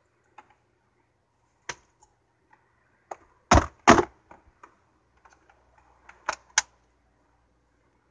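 Scattered sharp clicks and knocks from hands working at the car's dash and stereo. The loudest are a pair about three and a half and four seconds in, with two more a little after six seconds.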